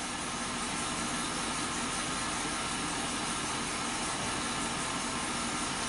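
2003 Chevy Silverado's 6.0 L V8 idling steadily, heard from inside the cab with a steady hiss over it. The engine is still warming up, a couple of minutes after a cold start.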